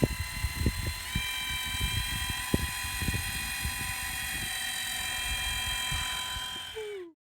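A steady high-pitched motor whine that steps up slightly in pitch about a second in, with scattered low thumps, cutting off abruptly near the end.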